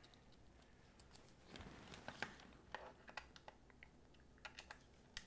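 Faint, scattered clicks and taps of a small screwdriver being picked up and set into a Phillips screw in a plastic pocket radio's back cover, with one sharper click near the end.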